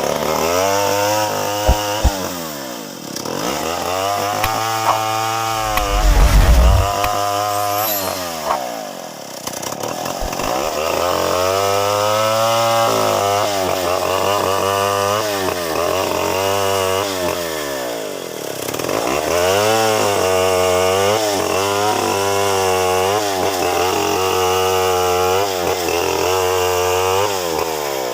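Two-stroke chainsaw cutting through wood, its engine pitch sagging under load and climbing back again and again. A heavy low thump sounds about six seconds in.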